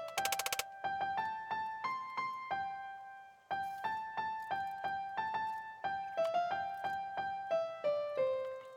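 Background music: a keyboard melody of single notes struck one after another, fading out near the end.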